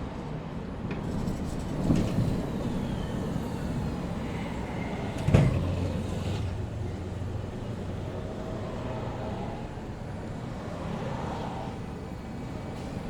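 Busy city street ambience: a steady rumble of passing traffic, with a sharp knock about five seconds in.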